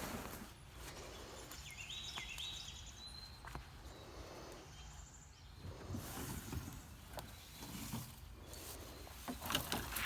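Faint outdoor ambience with a bird calling in short chirping notes early on, and scattered clicks and soft knocks, with a louder rustle near the end.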